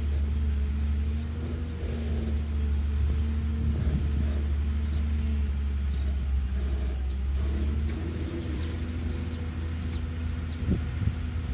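Caterpillar excavator's diesel engine running with a steady low drone, with a few metallic creaks and short knocks from the working machine, most noticeably near the end.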